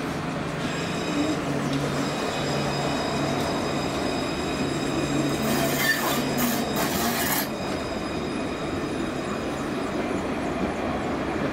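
Alstom Citadis 402 light-rail tram passing close by: steel wheels running on the rails with a low motor hum and a thin high whine. There is a louder rushing stretch about six seconds in, and the whine stops near the end.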